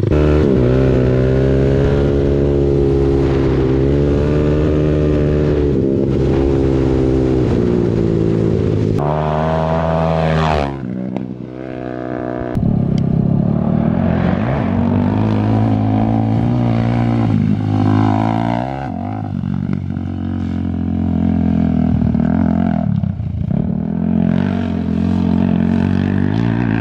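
Yamaha YFZ 450 sport quad's single-cylinder four-stroke engine running hard as it is ridden, the revs rising and falling with the throttle. About ten seconds in the revs drop briefly, then climb again.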